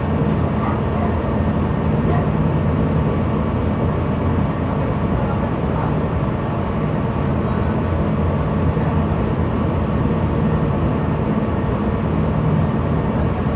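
Steady low rumble aboard a ship: a machinery hum mixed with wind noise, unchanging throughout.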